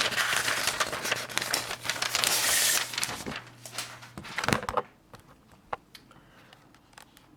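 A sheet of paper rustling and crinkling as it is pulled out of an 1892 Empire No. 1 typewriter using the release lever, with sharp clicks from the mechanism. The rustling stops about five seconds in, followed by one more click.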